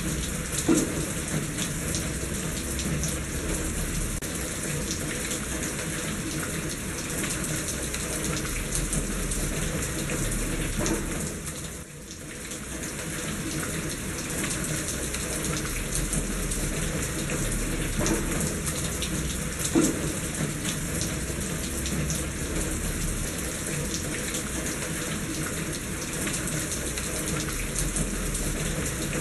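Steady rain falling, with rainwater running and splashing in a gutter and scattered louder drips and knocks. The level dips briefly about twelve seconds in.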